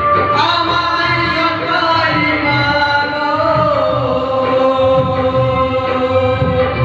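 A male singer singing into a microphone over amplified band music with a steady beat, holding one long wavering note through the second half.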